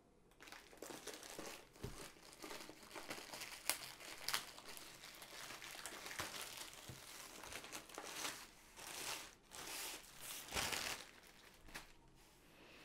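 Thin plastic bag crinkling and rustling as it is handled, opened and slid off a rolled canvas, with sharp crackles now and then and a few louder rustles in the second half.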